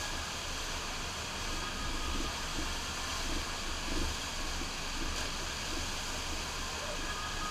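Steady rush of water from a FlowRider surf machine's sheet wave, water pumped at speed up the ride surface, with a low rumble beneath and a couple of slight swells in loudness.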